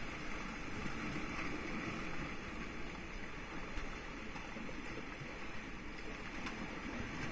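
Sea water washing and surging against the rocks of a rocky shoreline, a steady rushing noise.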